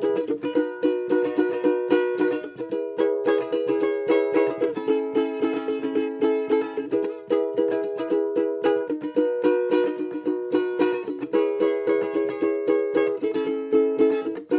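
Ukulele strummed with a steady down, down, down, up, down, up pattern, playing through a chord progression with a chord change about every two seconds.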